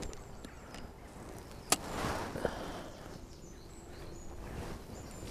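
Quiet lakeside ambience with faint, high bird chirps. A single sharp click comes about one and a half seconds in, with a softer click and light rustle shortly after, as a float rod is handled and rigged.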